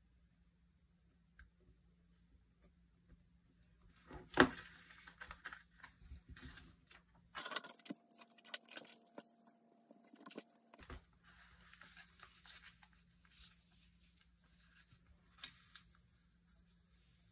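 Paper being handled: faint craft-knife scoring on a printed photo, then a loud paper rustle about four seconds in, followed by several seconds of crisp crinkling, scraping and clicks as cutouts are moved and smoothed down.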